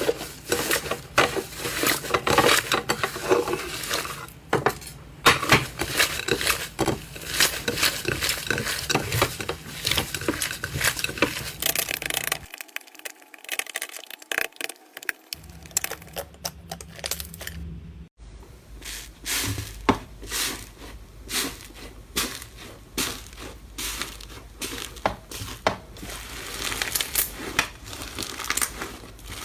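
A hand squeezing and kneading slime, making rapid, irregular clicks and pops that go on almost without a break.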